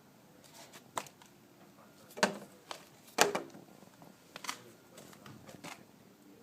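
Several sharp clicks and knocks at uneven intervals, like hard objects being handled or tapped, the loudest two a little over two and three seconds in.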